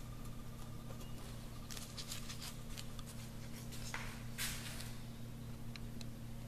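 Quiet workshop room tone: a steady low electrical hum, with a few faint taps about two seconds in and a short hiss about four seconds in.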